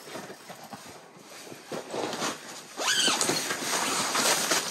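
Spinning reel being cranked as a fish is reeled up through a hole in the ice. A rasping, whirring noise that gets louder about three seconds in.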